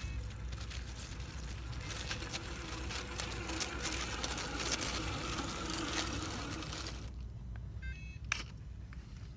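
Scale RC truck with a 550 brushed electric motor running in high gear over loose lava rock: a faint motor and gear whine under the crackle of tyres on stones, growing as it passes close and dropping off sharply about seven seconds in. A few short high chirps and a sharp click follow near the end.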